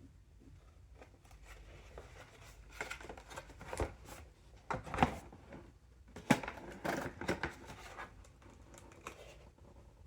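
Packaging being handled and opened: irregular rustling, crinkling and scraping, with two sharp knocks about five and six seconds in.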